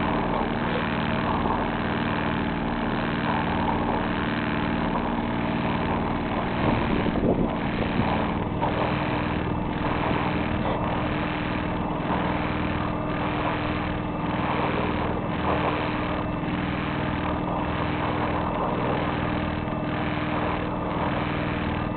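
A sailboat's auxiliary engine running steadily under way: a steady low hum over a constant rush of noise, with a faint regular pulsing in the higher part of the sound from about eight seconds in.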